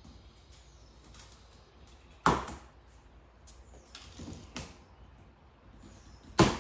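Large cardboard bicycle shipping box being handled and opened by hand: two sharp knocks of the cardboard, about two seconds in and near the end, with quieter scraping and rustling of the flaps between.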